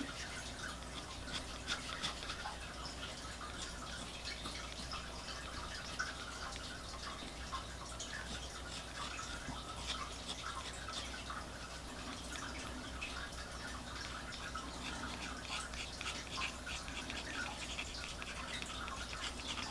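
Fountain pen nib scratching across paper in many short, irregular strokes while sketching, over a faint steady hum.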